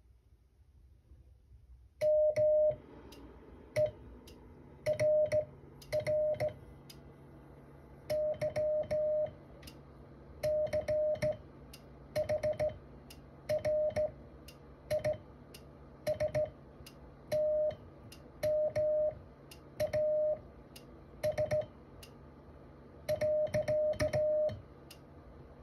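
Morse code sent slowly by hand on a telegraph key, heard as a steady mid-pitched transceiver sidetone beeping in short and long elements. A sharp click from the key marks the start and end of each beep.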